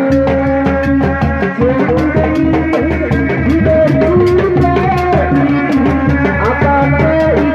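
Sundanese reak music: a woman singing through a microphone over a steady beat of dogdog drums.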